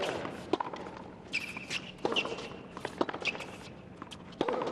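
Tennis rally on a hard court: a serve followed by an exchange of racket-on-ball strikes and bounces, roughly one a second, with a few short high squeaks between them.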